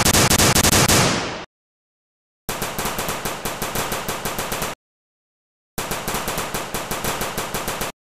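Automatic gunfire sound effect: rapid-fire bursts of machine-gun shots. A first burst fades out about a second and a half in, then two more bursts of about two seconds each follow, with dead silence between them.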